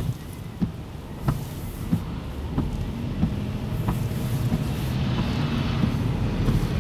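Vehicle running and gathering speed, heard from inside. A low rumble grows louder, with regular knocks about every two-thirds of a second that come closer together in the second half.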